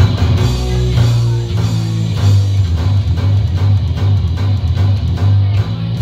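Live rock band playing loud: electric guitar over heavy, shifting low bass notes and a drum kit keeping a steady beat.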